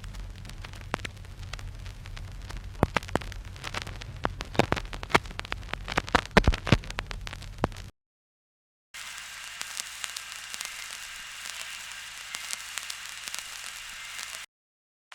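Vinyl record crackle, a stylus in the groove giving dense pops and clicks over hiss and a low hum. It stops about eight seconds in. After a second of silence a second, thinner crackle follows: hiss with sparser clicks and a faint steady whine, without the low hum, ending shortly before the close.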